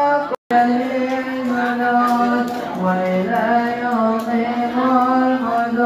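Arabic Islamic devotional chanting, sung in long held notes that glide slowly from pitch to pitch, broken by a brief dropout about half a second in.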